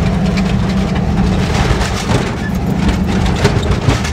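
A 1949 Chevrolet tow truck's engine running steadily while the truck drives along, heard from inside the cab with a low, even drone. From about halfway through come repeated short clatters and rattles.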